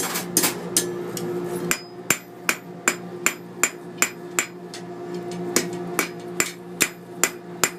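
Blacksmith's hammer striking hot iron on an anvil in a steady rhythm, about two and a half blows a second, with a short pause about a second in. A steady hum runs underneath.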